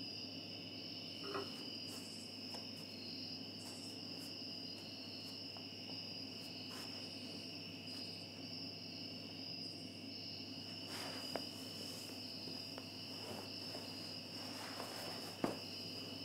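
Steady chirring of crickets, with a few faint clicks and knocks now and then; the sharpest comes near the end.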